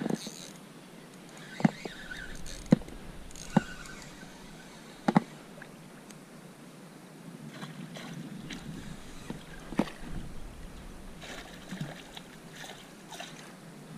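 A small hooked pike thrashing and splashing at the surface as it is reeled in on light spinning tackle beside an inflatable kayak, with water lapping. Several sharp knocks stand out over the first ten seconds.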